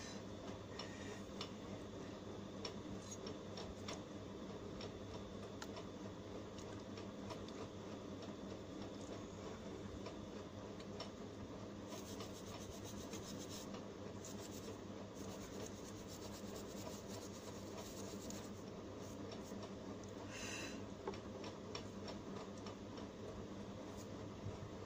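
Faint clicks and scraping from a phone circuit board being handled against a metal PCB holder, with a busier stretch of rubbing about halfway through, over a steady low hum.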